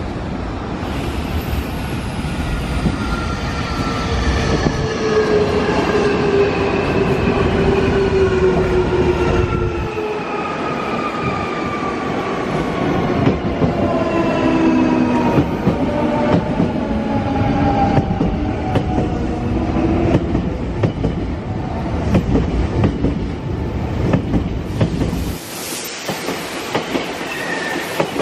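Nankai electric train braking into a station: its traction motors whine in several tones that fall steadily in pitch over about twenty seconds, over the rumble and clicking of wheels on the rails. The whine dies away as the train slows, and the rumble drops off sharply a few seconds before the end.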